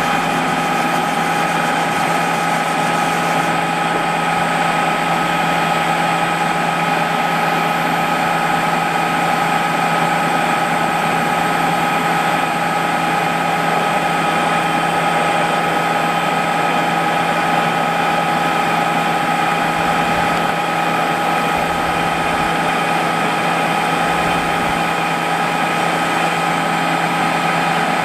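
Harrison M300 lathe, converted to CNC, running steadily under Mach3 control for thread cutting: an even machine drone with steady whining tones over it.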